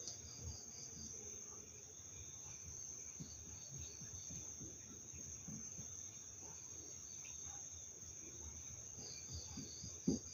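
Crickets and other night insects chirping steadily: a continuous high trill with rows of short repeated chirps over it. A short low knock sounds near the end.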